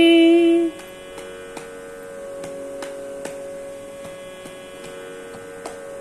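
A woman's held sung note in a Carnatic song stops under a second in. After it a steady pitched drone with soft plucks every half second or so goes on, the tanpura-style drone that accompanies the singing.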